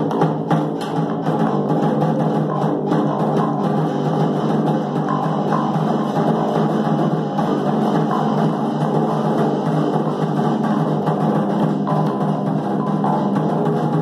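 Live instrumental band music: a lone snare drum struck with sticks, with electric bass and guitar playing along.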